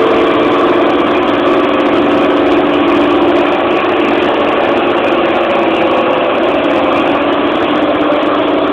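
Tractor engine running steadily, with the hydraulic boom-arm flail mower rig on it, as the tractor drives off and turns across the lawn: a loud, even drone with a steady pitch.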